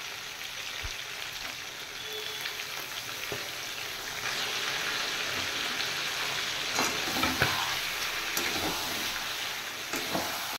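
Chicken and potato pieces sizzling in hot oil in a metal kadai. About four seconds in the sizzle grows louder as onion paste goes into the oil, then a metal spatula scrapes and clicks against the pan while stirring.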